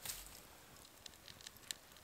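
Wood campfire crackling faintly: a sharper pop at the start, then scattered small snaps.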